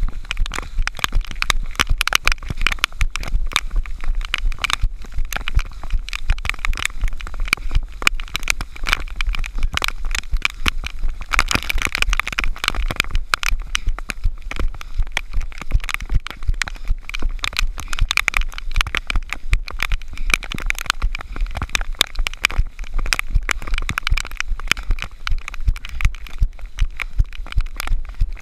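Running footfalls in wet mud, about two to three a second, mixed with a dense crackling patter of raindrops and jostling on the camera's housing, over a low rumble of wind.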